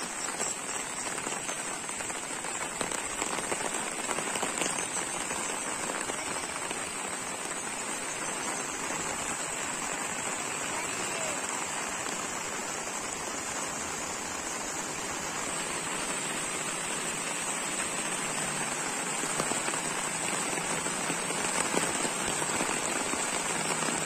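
Steady rain falling, an even hiss, over a fast-flowing flooded river, growing a little louder near the end.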